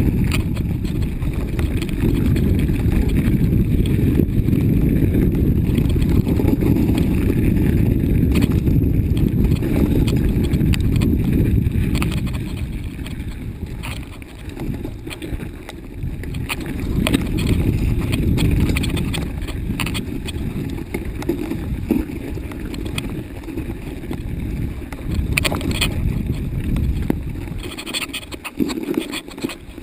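Mountain bike riding over a rough, snowy forest trail: a steady low rumble from the tyres and frame with scattered rattles and knocks. The rumble is heaviest for about the first twelve seconds, then eases and turns more uneven.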